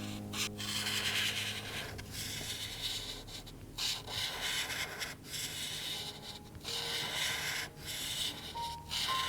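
Alcohol marker nibs rubbing across paper in repeated coloring strokes: a scratchy hiss broken by brief pauses between strokes.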